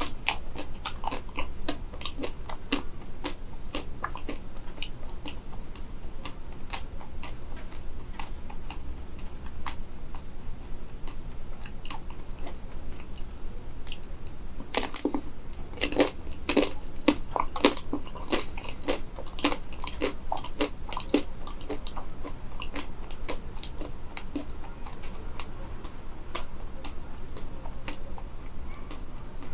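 Close-up crunching and chewing of crispy-coated small bananas being eaten, with many short crackly bites and a denser, louder run of crunches about halfway through.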